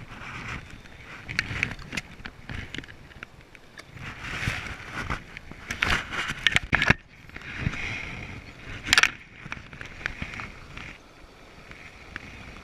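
Steady rush of river water, with irregular knocks, clicks and rustles from handling close to the microphone, loudest around the middle and about nine seconds in.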